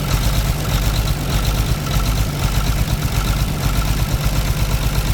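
Caterpillar C13 diesel engine idling with a fast, even low pulse, just after starting, its cylinder head cover off. The engine is being checked for a misfiring injector that causes heavy smoke.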